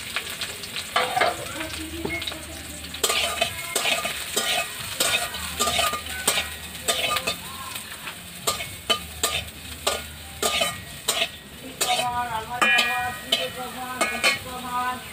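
Bori (sun-dried lentil dumplings) sizzling as they fry in oil in a kadai, while a spatula stirs them, knocking and scraping against the pan many times.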